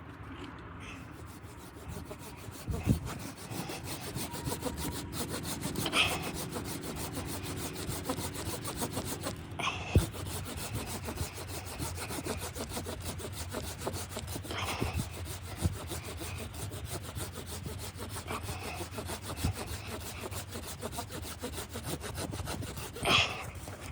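Saw cutting through wood in steady, continuous strokes, with a few harsher rasping moments along the way.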